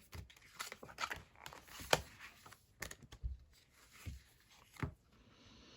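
Paper sticker sheets being handled: scattered soft rustles and light clicks, the sharpest about two seconds in.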